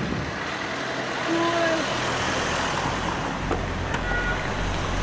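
Zeppelin NT airship's propeller engines droning overhead, a steady low hum that grows stronger about three and a half seconds in.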